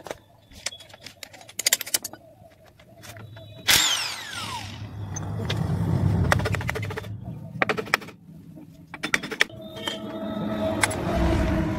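Metal tools clinking and knocking against a stripped engine block, with a sudden power-tool burst about four seconds in whose whine falls in pitch as it winds down.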